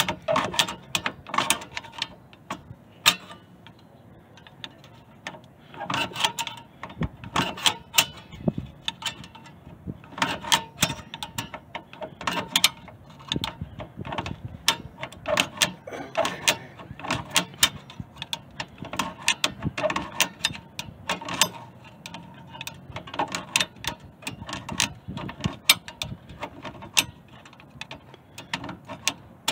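The adjusting screw of a 2002 Dodge Neon's rear drum brake being turned, in irregular runs of rapid clicks with short pauses. The screw is being wound in to draw the brake shoes together and take tension off the return springs.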